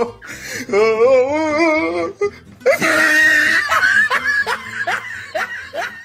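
A person laughing: a long wavering voiced laugh, a loud breathy burst, then a run of short rising 'ha' sounds.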